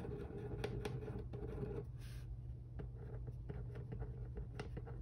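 A Shanos glue pen's tip scratching and ticking on a paper test sheet as words are written by hand, over a faint steady hum.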